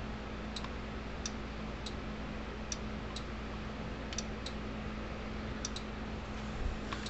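Faint, light clicks and ticks at uneven intervals as a plastic solar charge controller is handled and held against its mounting plate, over a steady low hum.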